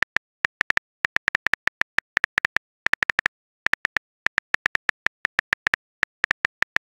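Smartphone keyboard typing sound effect: rapid, uneven runs of short clicks with brief pauses between them.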